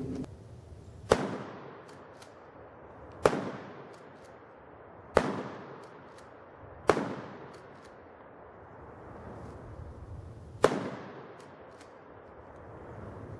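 Remington 870 12-gauge pump shotgun fired five times at uneven intervals, each shot trailing off in an echo, with faint clicks between shots.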